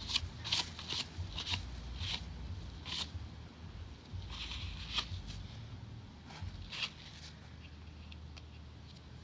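Paper towel rustling and rubbing as a funnel is wiped clean, in short strokes about twice a second at first, thinning out to a few faint rustles after about six seconds.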